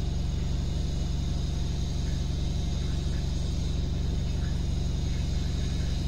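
Samsung EcoBubble 8 kg top-load washing machine on its spin cycle, the drum spinning very fast to wring the water out of the clothes: a steady low hum with a faint, thin high whine over it.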